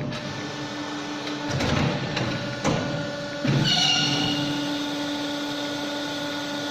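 CNC pipe bending machine running: a steady motor hum, broken by surges of mechanical movement noise, with a brief high squeal about three and a half seconds in.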